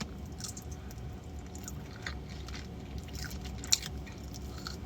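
A person chewing chicken wings with her mouth open, close to the microphone: faint wet chewing with scattered small clicks, one sharper click a little after the middle.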